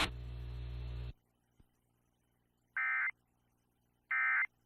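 Emergency Alert System data tones: two short, warbling bursts of the end-of-message (NNNN) code, each about a third of a second long and a little over a second apart. They mark the end of the alert. Before them, a second of broadcast hiss and hum cuts off abruptly.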